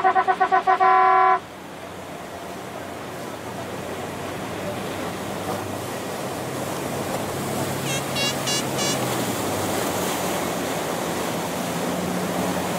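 A horn sounding, breaking into a quick run of short toots and cutting off about a second and a half in. After it, a steady rush of water and boat motors, with a few short high chirps about eight seconds in.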